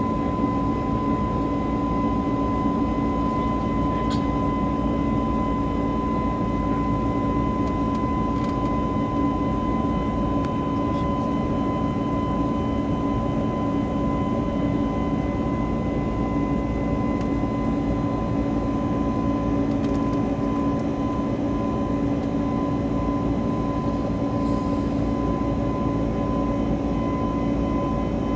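Airbus A321-200 airliner cabin noise: a steady jet-engine and airflow hum with a constant whine mixed in, and a few faint clicks.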